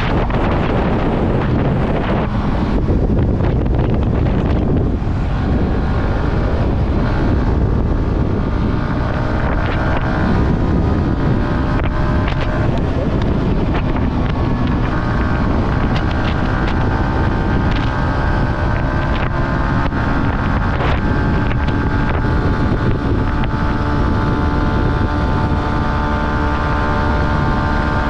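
Yamaha R15's single-cylinder 155 cc engine running under way at a fairly steady speed, with heavy wind noise on the microphone. The engine note comes through more clearly from about a third of the way in, shifting gently in pitch with the throttle.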